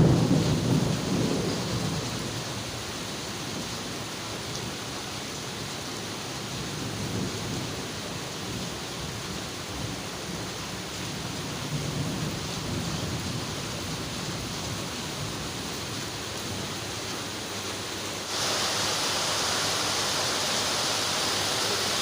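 Steady rain with a low thunder rumble fading away over the first couple of seconds. About eighteen seconds in, the rain noise suddenly becomes louder and hissier.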